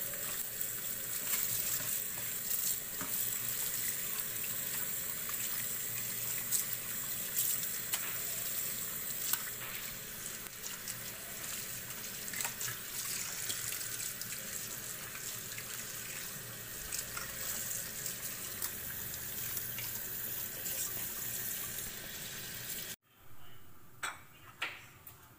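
Tap water running into a steel sink while raw pork trotters are rubbed and rinsed by hand in a metal colander, with scattered small knocks and splashes. The water sound stops abruptly about 23 seconds in, followed by a couple of light clinks near the end.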